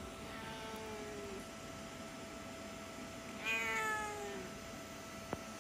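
A cat meowing twice, each call falling in pitch: a faint meow about half a second in, then a louder, longer one midway from the grey-and-white folded-ear cat.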